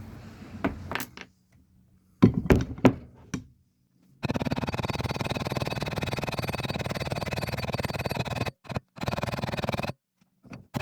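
Hammer striking copper rivets to peen them over in leather: a few separate knocks, then about four seconds in a long, rapid run of tapping like a woodpecker, which breaks off briefly near the end.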